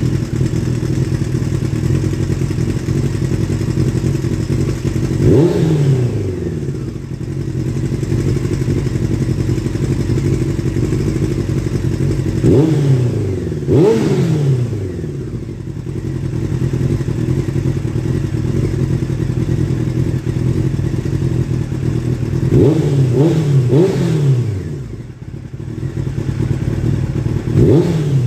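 Motorcycle engine idling through a homemade slip-on muffler, with about seven quick throttle blips, each revving up sharply and dropping back to idle; three of them come in quick succession a little past two-thirds of the way through.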